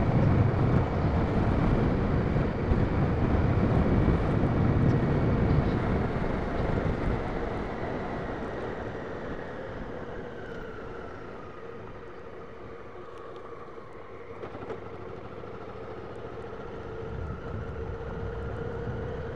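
Honda Africa Twin CRF1000L parallel-twin engine running while the bike is ridden along a dirt trail, with wind buffeting the microphone. The rumble eases off about a third of the way in as the bike slows, and the engine note dips before climbing again near the end.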